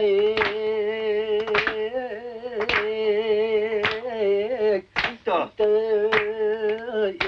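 A man singing long, wavering held notes, with hand claps keeping time about once a second.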